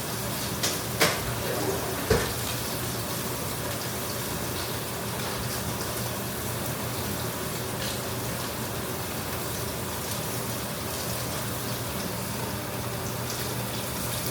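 Short ribs browning in a hot pan, sizzling steadily, with a few sharp knocks in the first two seconds.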